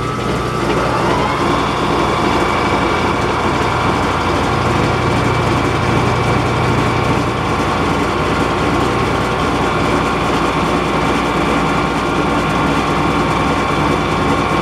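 Electric motor of a metalworking shop machine running steadily, its whine climbing and settling about a second in.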